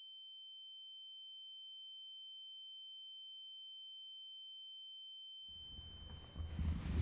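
A faint, steady, high-pitched pure tone, a sound-design ringing effect, that swells slightly and then cuts out about five and a half seconds in. Room sound with low rustling and movement comes in near the end.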